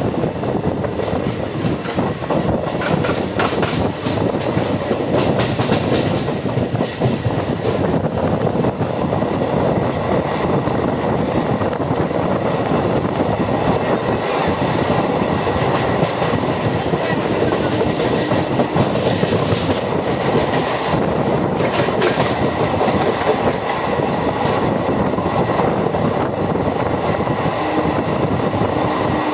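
MEMU electric multiple unit train running and gathering speed, heard from an open coach doorway: a steady rumble of wheels on rail with clickety-clack over the rail joints, and brief high wheel squeals at times.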